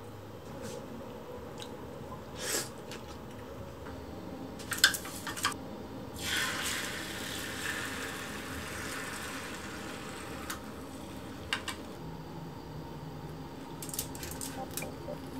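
Beaten egg poured into a hot rectangular tamagoyaki pan starts sizzling suddenly about six seconds in, then settles and fades. Before it there are a few sharp knocks and taps, and later a few light taps.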